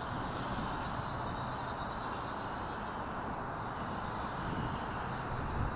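Distant WLtoys V950 200-size collective-pitch RC helicopter in flight: a steady whir of its brushless main motor and rotor blades, with an irregular low rumble underneath.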